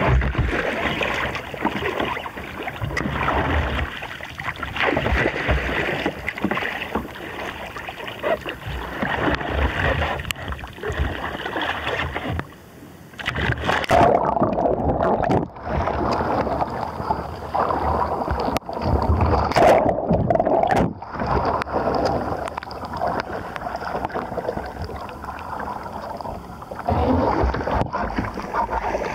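Water splashing, sloshing and gurgling around a wooden strip-built sea kayak and its paddle as the paddler capsizes and rolls back up. The deck camera goes under water for part of the roll, and the sound drops briefly just before that.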